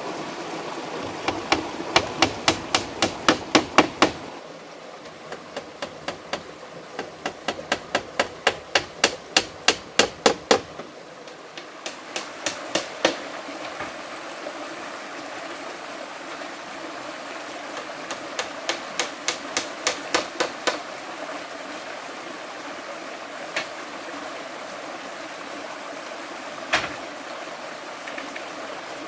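A hatchet knocking on a bamboo furniture frame, in quick runs of about four blows a second broken by pauses, with two single knocks near the end. A stream rushes steadily underneath.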